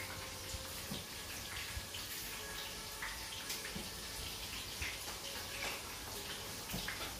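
Food sizzling in a frying pan on a gas stove: a faint, steady hiss with scattered small pops and clicks.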